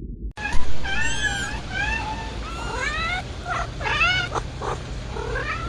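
A run of short, high animal cries, several overlapping, each rising and falling in pitch. They start after a sudden cut just a moment in and continue throughout.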